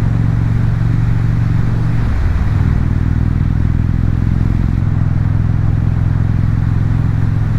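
Indian Super Chief Limited's Thunderstroke V-twin engine running under way through its aftermarket exhaust, heard with road and wind noise. The engine note breaks briefly about two seconds in and shifts slightly again near five seconds.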